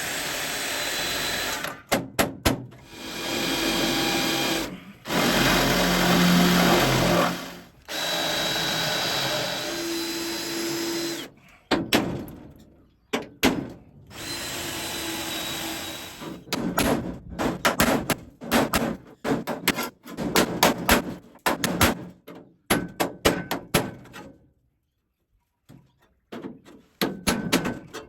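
Electric drill cutting out spot welds in the sheet steel of an FJ40 Land Cruiser's body panel, in four long steady runs. About halfway through, the drilling gives way to a long string of sharp, irregular knocks on the metal as the panel is worked loose, some welds tearing out.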